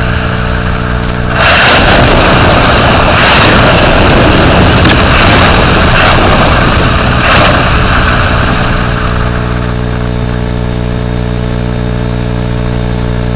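Onboard sound of an RC rally car: its drivetrain runs with a steady low hum, and from about a second and a half in a loud rushing noise of tyres on gravel covers it. The rush eases off about nine seconds in as the car slows to a stop, leaving the steady hum.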